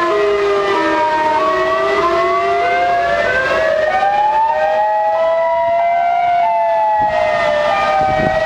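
Several outdoor tornado warning sirens sounding at once, their steady tones at different pitches overlapping and slowly wavering up and down.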